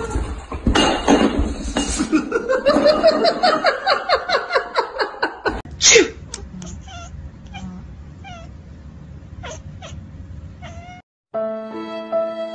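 A long run of loud, rapid, repeated high cries rising and falling in pitch, then one sharp falling cry about six seconds in. After it come a few soft, short chirps over a low rumble, and sustained violin-like music starts near the end.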